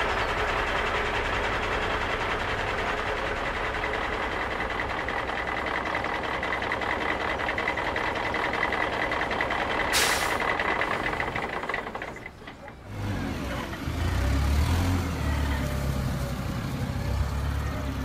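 Radio-controlled model truck, a converted Bruder Mack Granite, driving: a steady mechanical running sound with a constant high tone through it, and a short sharp hiss about ten seconds in. After a sudden drop about twelve seconds in, a lower, throbbing engine sound takes over.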